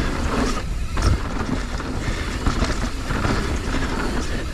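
Mountain bike running fast down a dirt trail: tyres rolling and the bike rattling steadily, with wind rumble on the microphone and a heavier knock about a second in.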